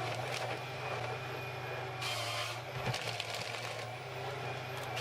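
Diesel engine of a compact wheel excavator running steadily at an even pitch, with a brief hiss about two seconds in.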